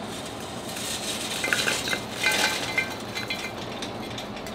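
Lit charcoal briquettes dropping out of a metal chimney starter's opened bottom latch into a terracotta pot, clinking and clattering against each other and the metal, with a cluster of light clinks about midway.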